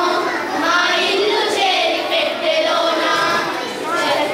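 A group of children singing a song together, with one girl singing into a handheld microphone.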